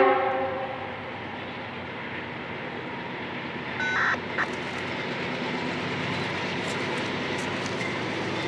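Diesel-hauled freight train approaching: a locomotive horn blast cuts off at the start, followed by a steady rumble of the engines and train that slowly grows louder. A brief high tone sounds about four seconds in.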